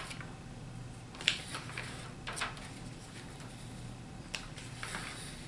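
Paper pages of a comic book being handled and turned: three brief rustles, about a second apart, over a faint steady low hum.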